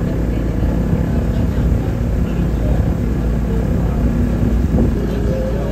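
Steady engine rumble of a small passenger boat, heard from on board.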